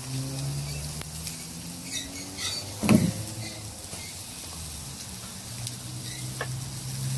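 Meat and ribs sizzling over the open fire of a grill, with a steady hiss. There is a brief knock about three seconds in, and a few faint clicks just before it.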